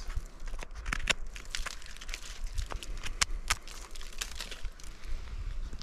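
Knife cutting and peeling dead bark off a conifer root rotted by Armillaria root disease, with irregular crackling and snapping as bark pieces tear away.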